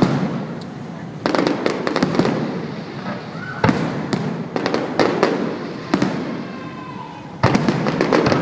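Aerial fireworks bursting: a run of sharp booms every second or two, each trailing off in crackling and echo, with a few brief whistling tones between them.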